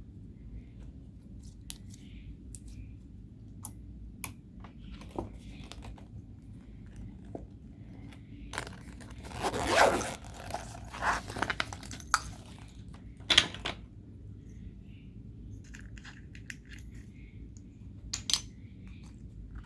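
Homemade slime being worked by hand: scattered sticky clicks and pops, with a louder crackling, tearing stretch about halfway through and a few sharp pops later on.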